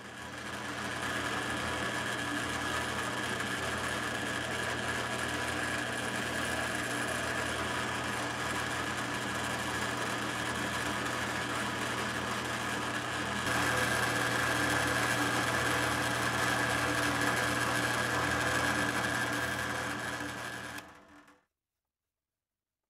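Cordless drill motor running steadily for a long stretch, first spinning a small screw so its head can be filed down, then from about halfway drilling a pilot hole into hardwood, a little louder from that point. The drill stops shortly before the end.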